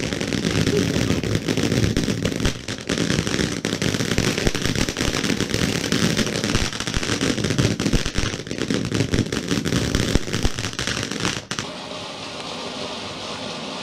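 Ground fountain firework spraying sparks with a dense, rapid crackle of small pops. About eleven seconds in the crackling cuts off sharply, and a steadier, quieter hissing spray carries on.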